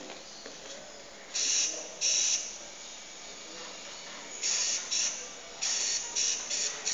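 Small robot's motors whirring in short hissy bursts, about eight of them, with pauses between, as the colour-tracking robot moves to follow the ball.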